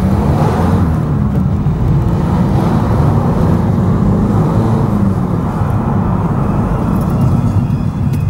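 Car engine and tyre noise heard from inside a moving car: a steady low drone while driving along a road.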